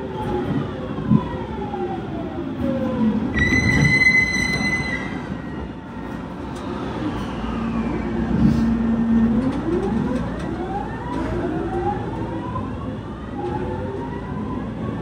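JR 209 series electric train's VVVF inverter and traction motor whine heard from on board, over running rumble. The whine's several tones glide down in pitch over the first few seconds, and a high steady tone sounds for about a second and a half near four seconds in. From about nine seconds the whine rises in pitch as the train picks up speed.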